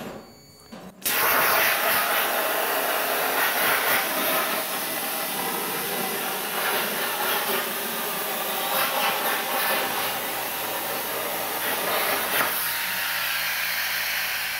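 Hypertherm Powermax 30 XP plasma cutter's arc hissing steadily as the CNC plasma torch cuts through 20 gauge mild steel sheet, with a thin high whine in it. The arc fires suddenly about a second in and stops near the end.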